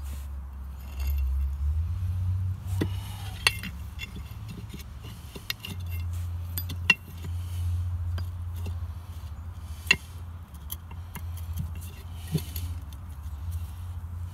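Sharp metal clinks and light taps, the loudest about three and a half, seven and ten seconds in, as the second-stage parts of a Flint & Walling CJ101 pump are fitted by hand onto the pump shaft and housing. A steady low rumble runs underneath.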